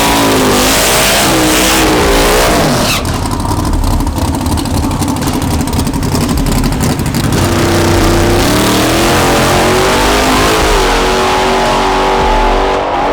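A car engine revving, its pitch swinging up and down over the first few seconds, then running steadier and climbing slowly through the second half.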